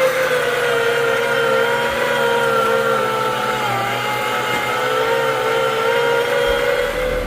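John Deere 1023E compact tractor's three-cylinder diesel engine running at high throttle while loading manure, its pitch wavering slightly.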